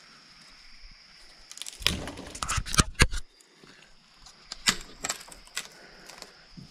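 Dry sticks and brush crunching and snapping while firewood is gathered: a burst of sharp cracks about two seconds in and a few more around five seconds, over a steady high hum.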